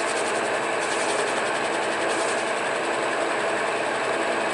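Monarch metal lathe running steadily with a gear whine, its threading tool taking a shallow cut to lay a groove in a shotgun choke.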